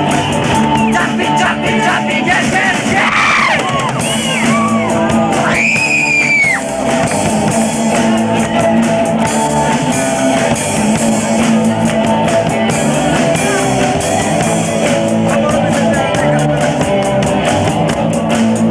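Live rock band playing electric guitar and drums with a steady beat. High wailing glides rise and fall over the first few seconds.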